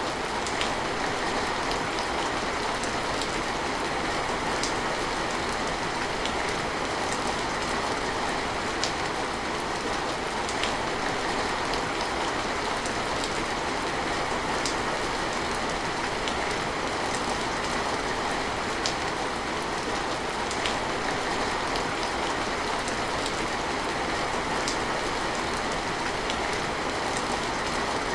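Steady heavy rain, with scattered sharp ticks of individual drops through it.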